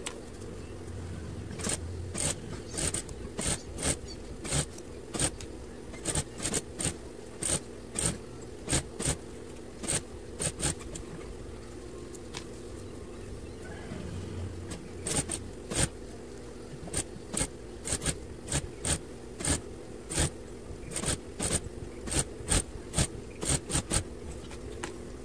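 Juki industrial sewing machine running: a steady motor hum with sharp clicks about two a second, in two long runs with a pause of a few seconds near the middle.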